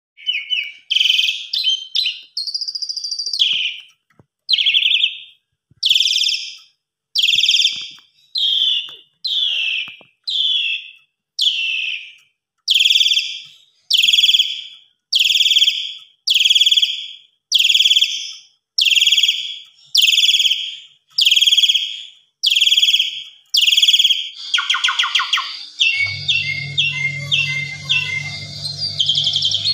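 Asian pied starling (jalak suren) calling a loud high note over and over, about once a second, each note falling slightly in pitch. Near the end it breaks into a fast chatter of clicks and varied short notes over a steady low hum.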